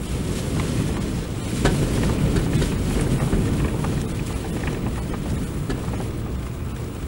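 Heavy storm surf breaking and churning over a rocky shore: a deep, steady rush of water that swells louder about a second and a half in and eases off near the end.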